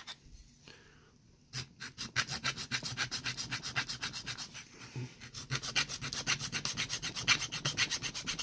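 Flat hand file scraping back and forth over the edge of a small plastic model-truck part, filing down a side that sticks out. After about a second and a half of quiet, the rapid, even strokes run several to the second.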